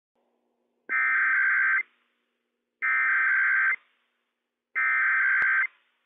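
NOAA Weather Radio Emergency Alert System header: three bursts of SAME digital data tones, each just under a second long with about a second between them, encoding a Required Weekly Test alert.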